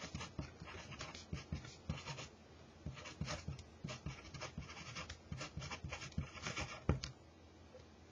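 A pen writing on paper: a run of short, irregular scratching strokes as words are written out, with one sharper tap about seven seconds in, after which the scratching stops.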